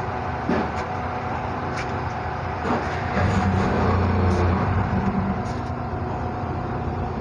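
Steady mechanical drone with a constant tone running through it, louder and deeper for a stretch about three to four and a half seconds in.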